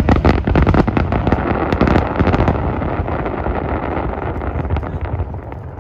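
Fireworks going off in a dense barrage of crackles and bangs over a low rumble. The crackling is thickest for the first two and a half seconds, then thins out and fades.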